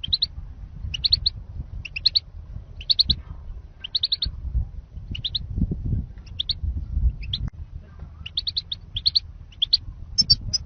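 European goldfinch calls: short clusters of two to four high chirps repeating about once a second, a lure call for trapping wild goldfinches, over a low rumble.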